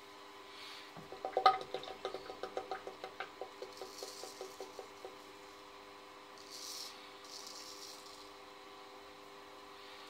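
Straight razor cutting through lathered stubble: a crackling rasp of rapid clicks, about seven a second, that fades over about four seconds. Two short scrapes follow later, over a steady low hum.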